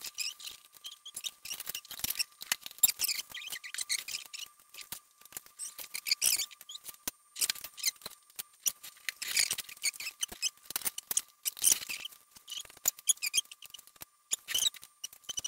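Dense, irregular clicks, crackles and rustles of hands handling masking tape and fitting blue panels onto an aluminium R2-D2 dome, over a faint steady tone.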